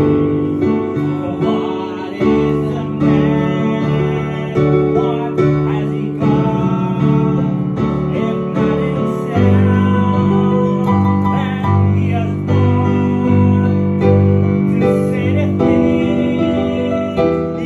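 Digital piano played with both hands: a slow piece of full, sustained chords with melody notes on top, struck about once a second.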